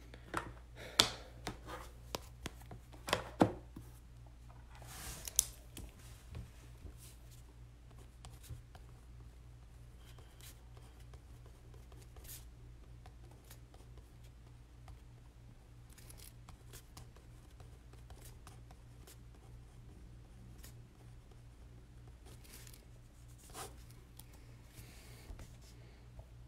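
Handling noises: a quick run of sharp clicks and snips in the first few seconds, then a short rustle about five seconds in. After that only sparse faint clicks are heard over a steady low hum.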